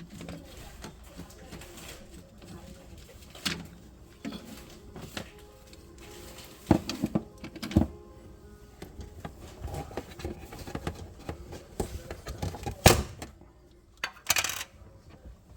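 Scattered sharp knocks and clicks, as of parts and tools being handled on a work surface, over quiet background music; the loudest knocks fall about halfway through and near the end.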